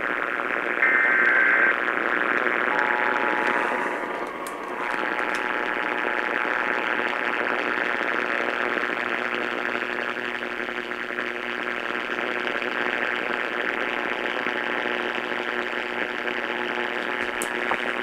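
AM radio receiving an Emergency Alert System test through heavy static hiss. About a second in, the last burst of the shrill digital alert header ends. From about three seconds, the steady two-tone EAS attention signal sounds faintly under the static.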